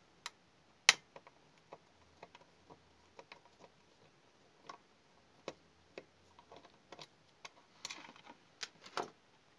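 Screwdriver backing a small screw out of the plastic case of a D-Link DIR-600 router: irregular light ticks and clicks. The sharpest click comes about a second in, and there is a cluster of clicks near the end.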